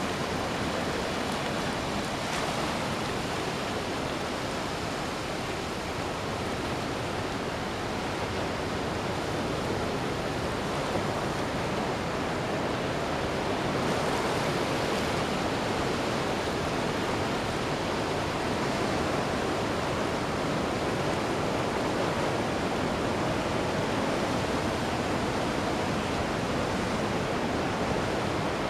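Ocean surf on a beach: waves breaking and washing in as a continuous, steady rush of noise that swells slightly about halfway through.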